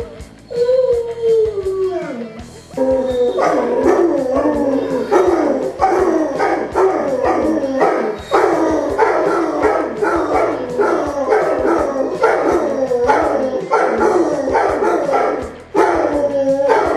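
Basset hounds howling: one long howl falling in pitch, then from about three seconds in a long unbroken run of short baying calls, each sliding downward, two to three a second.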